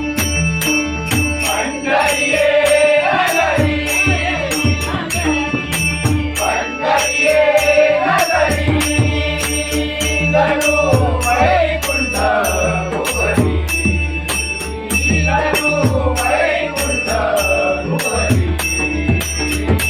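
Devotional abhang singing in Malvani bhajan style: a male lead voice sings over pakhwaj drum strokes and a steady, even beat of jingling percussion. A held tone sounds underneath. The voice comes in about two seconds in.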